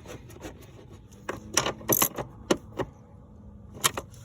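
Irregular light clicks and clinks of tools and parts being handled while the car's interior fuse panel is fitted back into place, with about half a dozen sharp ones.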